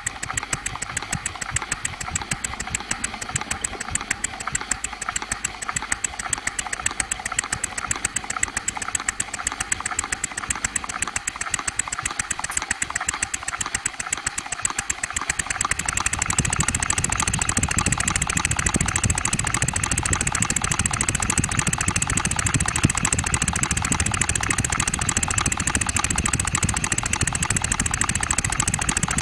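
Stuart Score twin-cylinder model steam engine running, its exhaust beating in a fast, even rhythm with light mechanical clatter. About halfway through it grows louder, with a deeper undertone.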